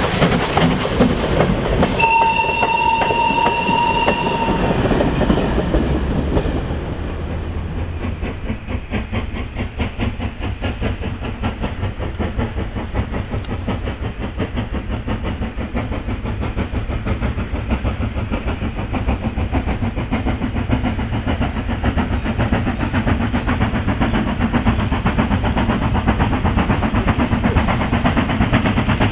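Steam locomotive hauling a freight train and working hard, its exhaust beating steadily and rapidly. A steam whistle sounds for about two seconds near the start. Later the exhaust beats grow louder as the locomotive comes nearer.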